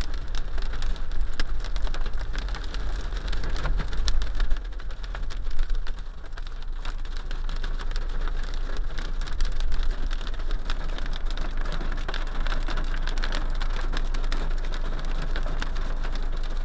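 Hail and heavy rain hitting a car's roof and windshield, a dense stream of sharp ticks over a steady hiss, heard from inside the car.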